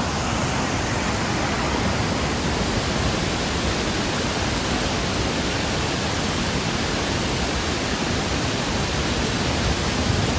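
Waterfall in flood: a heavy volume of water pouring down, making a loud steady rush.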